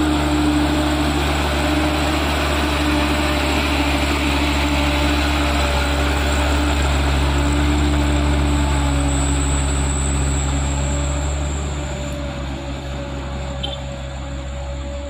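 Diesel engine of a loaded 125 PS light dump truck running in a steady drone as it crawls past through the mud. The sound fades as the truck pulls away, from about twelve seconds in.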